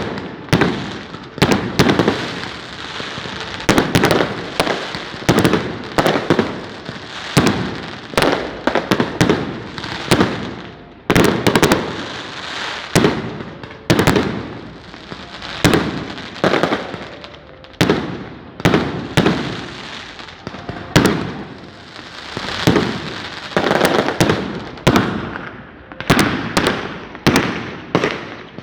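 Firecrackers going off in a long, irregular string of sharp bangs, roughly one or two a second, with crackling between them.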